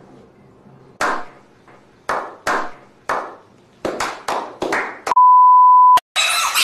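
About a dozen sharp hits, each dying away quickly, coming faster toward the end, then a steady high beep lasting about a second, like a censor bleep. A loud noisy sound starts just before the end.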